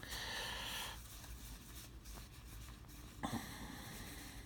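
Baseball cards being handled, with a dry scratchy rustle of card stock sliding against card stock in two brief stretches: one in the first second, another starting about three seconds in.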